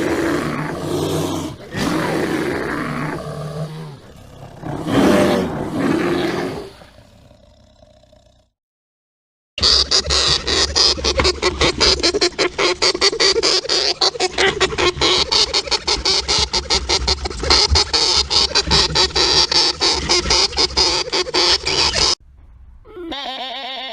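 A large cat, lion or tiger, roaring in long rough calls with two main surges. After a short silence comes a fast, dense, even rattle lasting about twelve seconds.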